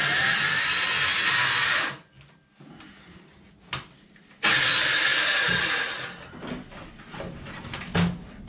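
Cordless circular saw cutting through an old painted cabinet door panel: the saw runs under load, stops about two seconds in, then starts again about halfway through for a shorter cut and winds down. Near the end the cut-off piece knocks as it falls away.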